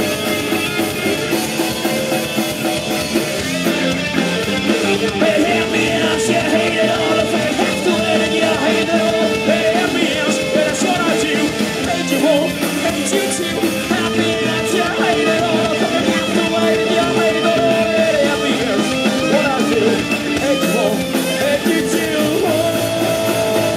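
Live rock band playing: distorted electric guitars, bass and drum kit, with a man singing over them.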